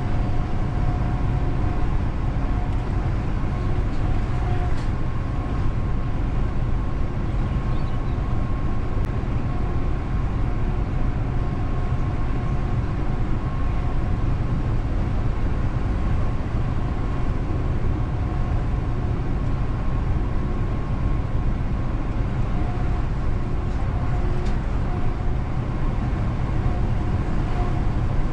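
DAF XF truck's diesel engine and road noise at a steady cruise: a constant low rumble with a faint steady whine over it.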